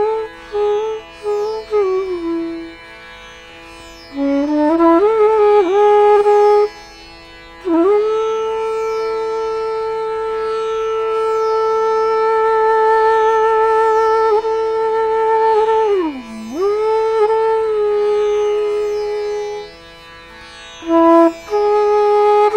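Instrumental background music in an Indian classical style: one melodic line with sliding pitch bends and a long held, wavering note, over a steady drone.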